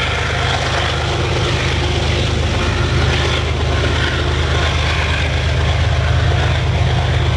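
Diesel-electric locomotive engine of a loaded BNSF coal train running: a steady low drone with a hiss above it.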